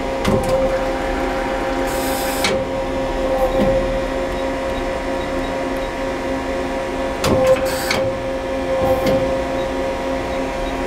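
A 1996 Okuma Cadet LNC-8 CNC lathe running under power: a steady machine hum with a constant tone, broken by a few short clicks and clunks and two brief hissing bursts, about two and eight seconds in.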